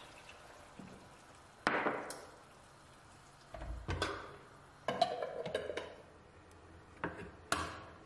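Kitchen clatter of glass and metal: a glass lid set onto a frying pan and a glass and jar lid put down on a stone countertop, giving a run of sharp clinks and knocks, some ringing briefly, with a low thud a few seconds in. A faint sizzle from the pan on the gas burner runs beneath.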